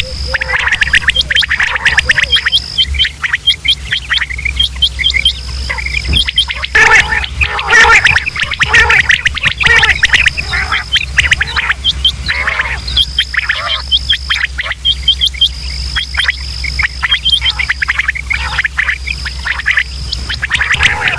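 Quail calling, many birds at once: a dense, overlapping chatter of short, sharp calls that never pauses. A steady high whine comes and goes above the calls, over a low hum.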